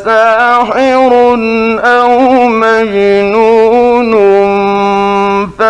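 A man's voice reciting the Quran in the melodic mujawwad style, with long drawn-out vowels and ornamented turns of pitch. There is a short break for breath near the end.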